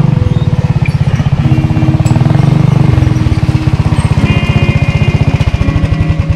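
Small engine of an off-road go-kart (dune buggy) running with a fast pulsing beat that slows near the end. Music plays underneath.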